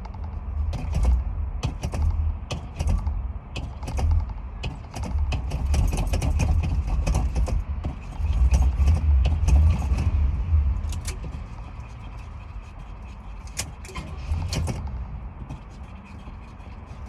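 A car engine being cranked and hard to start, with uneven surges of low rumble for about the first eleven seconds, then lower and steadier. Sharp clicks sound throughout.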